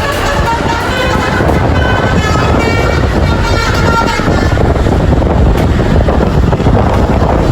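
A bus's telolet multi-tone air horn plays a quick tune of short stepped notes over a steady low rumble from the bus. The horn tune stops about four and a half seconds in, leaving only the rumble.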